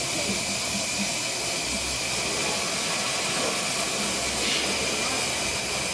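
Miniature 15-inch-gauge steam locomotive standing at rest, hissing steam steadily. About four and a half seconds in, the hiss briefly turns brighter.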